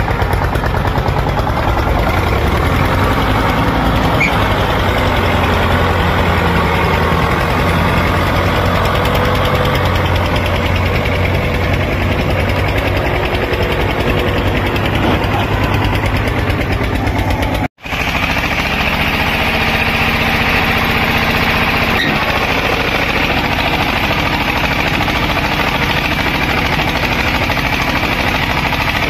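Diesel tractor engines running steadily while pulling trailers loaded with earth through deep mud. About two-thirds of the way through, the sound breaks off for an instant and resumes as a different engine with more high-pitched rattle.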